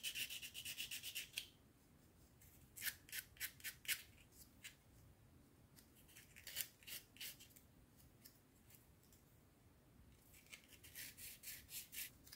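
Plastic model-kit parts being rubbed down by hand in four short bursts of quick, faint, scratchy strokes. The strokes are abrading small high spots so the wings fit flush.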